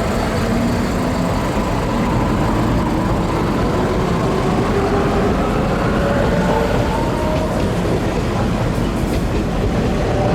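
Rail maintenance vehicle moving along the track: a steady rumble with a whine that climbs slowly in pitch as it picks up speed.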